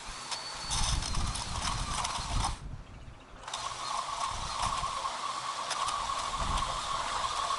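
Ryobi 40-volt cordless yard tool's electric motor running with a steady whine, and its attachment clattering and knocking as it works. The sound drops away briefly about three seconds in.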